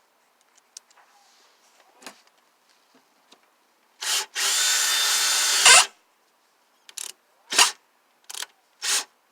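A power drill spins briefly. It then runs steadily for about a second and a half, followed by four short bursts.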